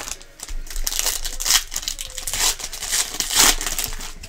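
Foil wrapper of a Donruss basketball card pack crinkling and tearing as it is ripped open by hand, in several loud crackly bursts.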